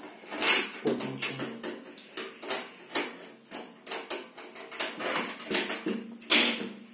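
Aluminium mesh grease filter being handled and fitted into a stainless-steel cooker hood's slide-out panel: a run of light metal clicks, taps and scrapes. The loudest come about half a second in and again just after six seconds.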